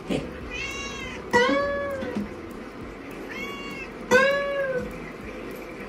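A cat meowing four times in two pairs, each a short fainter meow followed by a louder, longer one that rises and falls in pitch, over an acoustic guitar being played.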